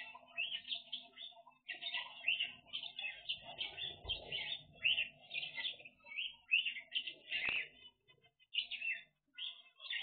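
Aviary of zebra finches and other cage birds chirping constantly, a dense chatter of short, overlapping high calls. A brief knock about seven and a half seconds in.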